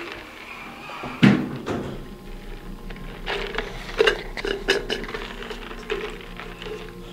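Elevator car's sliding doors shutting, closing with a single loud thunk about a second in; a steady low hum follows as the car starts moving, with scattered clicks and knocks.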